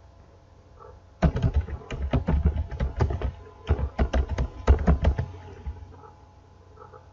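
Computer keyboard typing: a quick run of key clicks starting about a second in and lasting about four and a half seconds.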